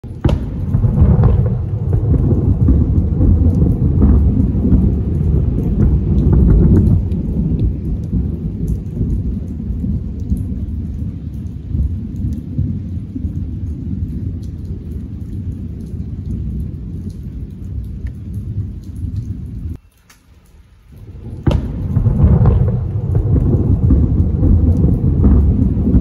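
Heavy rain pouring down with rolling thunder. The sound drops away briefly about twenty seconds in, then a sudden sharp crack brings back the downpour and rumbling.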